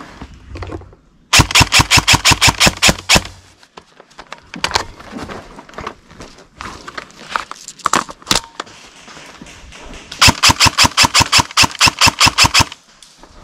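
Airsoft rifle firing two strings of rapid shots, about ten a second. The first lasts about two seconds, starting just over a second in; the second lasts about two and a half seconds, near the end. Scattered fainter clicks and knocks fall in between.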